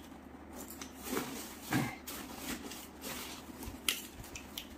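Nylon saddle bag rustling as its flap is closed and its plastic side-release buckles are handled and fastened, with a few soft clicks, the sharpest about four seconds in.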